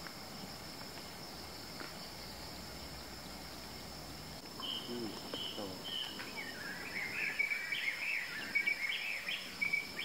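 Steady high insect drone in the grassland, with a bird joining about halfway: a few short repeated notes, then a run of quick chirping calls.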